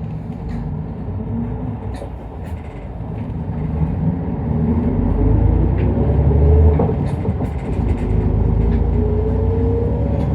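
Isuzu Erga Mio bus's diesel engine and drivetrain heard from inside the cabin, pulling harder from about four seconds in, the engine rumble swelling while a faint whine rises steadily in pitch as the bus gathers speed. A few short knocks and rattles from the body come through.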